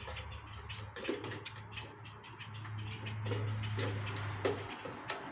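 Light clicks and knocks of plastic cat-fountain parts being handled and pressed together, over a low steady hum that stops about four and a half seconds in.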